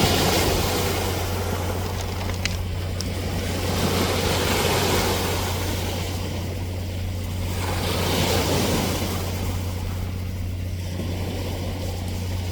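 Ocean waves breaking and washing ashore, swelling and fading about every four seconds, over a steady low hum.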